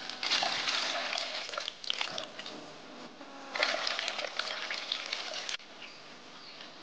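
Water poured from a plastic scoop onto chopped cassava in a metal pot, splashing in two pours; the second starts about three and a half seconds in and cuts off suddenly about five and a half seconds in.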